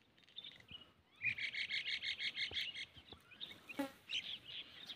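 Songbird singing: a rapid, high trill of about ten short notes at roughly seven a second, starting about a second in, with scattered short chirps from birds around it.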